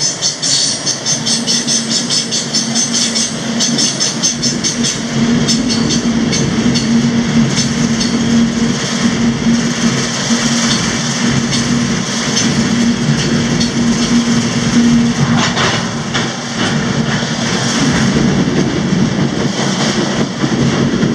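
A moving freight train heard from the open end platform of a covered hopper car: steel wheels clattering over the rails and the cars rattling, with rapid clicking in the first few seconds and a steady low hum through the first two-thirds.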